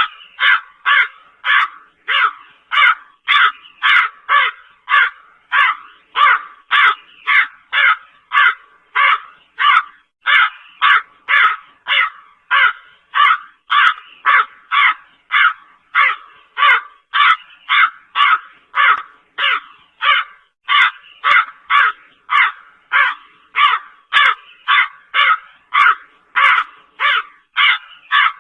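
Crow cawing in a long, even run of harsh caws, about two a second without a pause.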